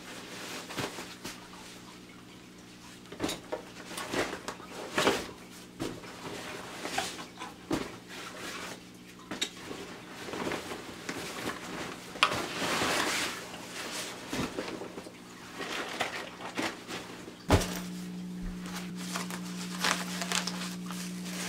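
Handling noise from packing a nylon hiking backpack: fabric rustling, with irregular clicks and knocks from buckles, zipper pulls and strap hardware. A steady low hum runs underneath and grows louder about three-quarters of the way through, when the handling switches to a camera bag.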